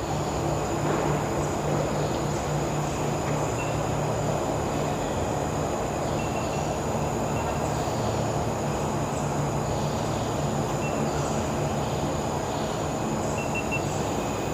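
Steady low hum under an even rushing noise, unchanging in level.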